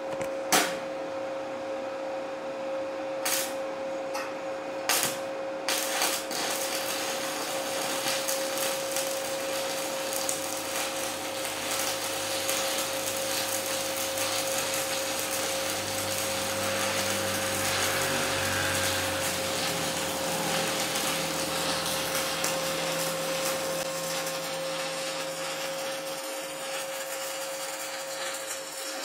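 Stick (MMA) welding arc with a 3.2 mm electrode at 120 A on a Multipro inverter welder: a few sharp strikes in the first six seconds as the arc is struck, then a steady crackling hiss of the running arc, with a steady hum underneath. The arc burns stable at this setting.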